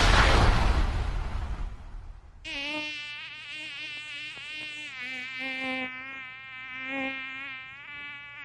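A noisy swoosh dies away over the first two seconds, then a buzzing sound effect starts, a rich, slightly wavering drone like an insect flying close by.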